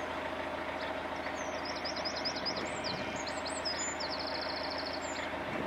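Narrowboat engine running steadily at cruising speed, a constant low hum. Over it a small songbird sings a fast run of repeated high notes, starting about a second in and ending shortly before the end.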